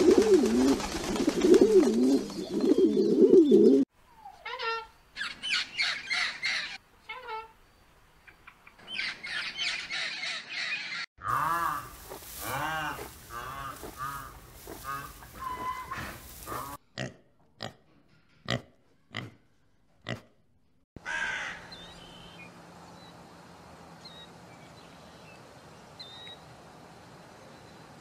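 A string of separate animal sounds: pigeons cooing in a flock with wings flapping for the first four seconds, then bursts of shorter calls and grunts, a few sharp clicks, and near the end a low steady hiss with a few faint bird chirps.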